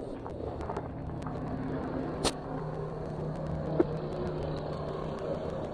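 A motor running steadily with a low hum, with two sharp clicks, one about two seconds in and another near four seconds.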